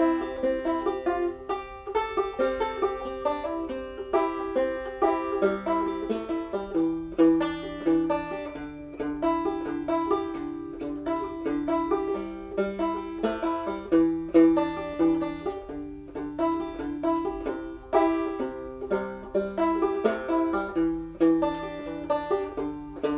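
Solo banjo playing an old-time fiddle tune: a steady run of plucked notes, with one note struck again and again throughout under the moving melody.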